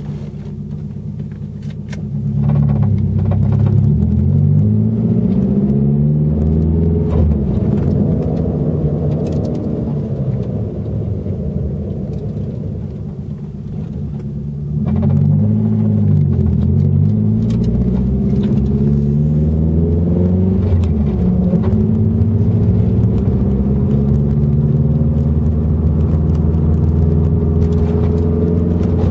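Nissan 240SX (S14) driving, engine speed climbing as it accelerates about two seconds in and again about fifteen seconds in, falling as it comes off the gas, then running steadily. Under it a whine from the newly installed viscous limited-slip differential, which comes in off the gas; the owner wonders whether the diff is bad or a wheel bearing is going.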